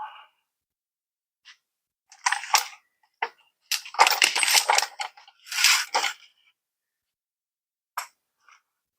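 Metal hand tools clinking and clattering in several short bursts, with a longer run of clatter in the middle and one last sharp clink near the end.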